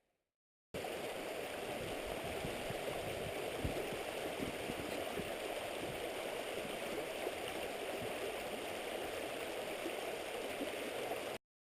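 Steady rush of fast-flowing mountain creek water. It cuts in abruptly just under a second in and cuts off abruptly near the end.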